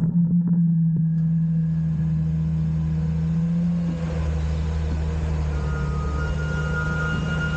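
Front-loader garbage truck's engine and lift hydraulics running steadily as the arms lower an emptied compactor bin. A thin high whine joins in about two-thirds of the way through.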